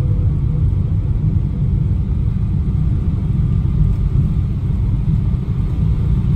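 Airliner cabin noise during the landing roll on the runway: a steady, loud low rumble heard through the fuselage.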